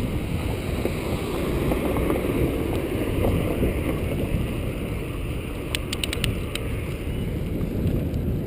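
Wind buffeting the microphone with a low rumble from a bicycle rolling along pavement. A short run of sharp clicks about six seconds in.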